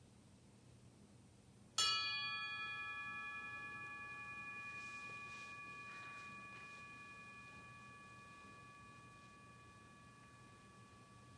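A bell struck once about two seconds in, its several ringing tones fading slowly over the next several seconds.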